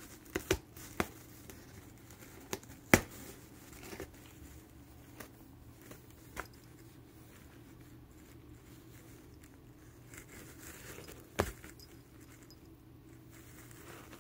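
Cat gnawing and biting at something inside a fleece cat tunnel: irregular sharp clicks and snaps of its bites, several in the first seconds with the loudest about three seconds in, then a quieter stretch before one more snap near the end.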